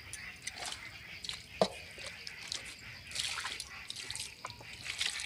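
Water poured from a small cup splashing and dripping onto the ground, with a few small knocks and a louder splash about three seconds in.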